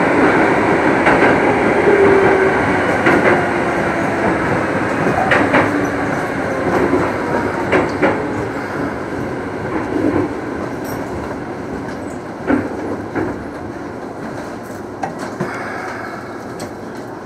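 Keikyu 2000-series electric train running, heard from just behind the cab: steady wheel and running noise with scattered sharp clicks of wheels over rail joints and points. The noise sinks steadily as the train slows.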